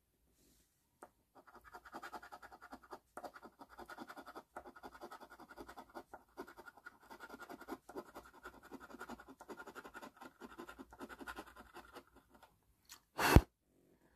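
Rapid, steady scratching strokes scraping the latex coating off a lottery scratch-off ticket, running for about ten seconds. Then a brief loud whoosh near the end.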